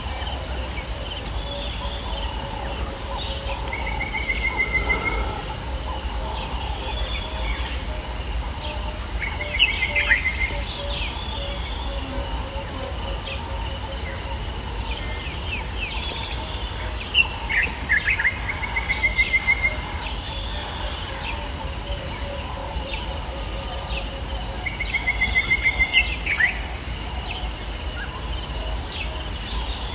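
Bush ambience: a steady high-pitched insect drone, with birds calling now and then in short trills and quick sweeping notes, over a low steady rumble.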